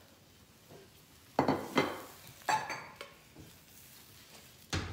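Frying pan and cooking utensils clattering at the stove: three sharp clanks between about one and a half and two and a half seconds in, then a louder one near the end.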